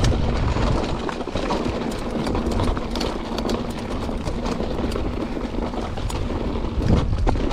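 Mountain bike clattering and rattling over a rough trail, with many small irregular knocks and a steady low rumble of wind on the microphone.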